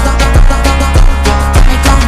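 Background music: a song with heavy bass and a steady drum beat.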